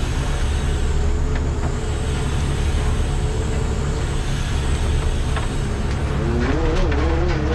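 Fishing boat's diesel engine running steadily, a constant low drone, with a faint wavering tone that rises and falls over it near the end.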